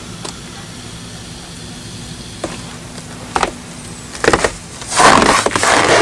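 Footsteps crunching in deep snow: a few scattered crunches, then a louder run of crunching near the end, over a steady low hum.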